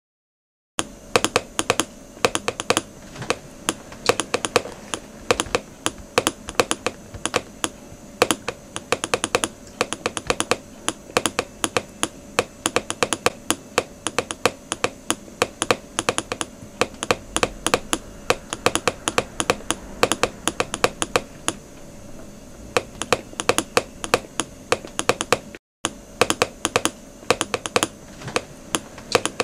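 Rapid, irregular clicking of keys being tapped, as in typing, going on almost without pause over a faint steady hum. It starts about a second in and cuts out briefly a few seconds before the end.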